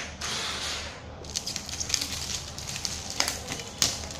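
Plastic shrink-wrap on a phone box crinkling and crackling as it is handled and pulled open: a rustle in the first second, then a run of small sharp crackles.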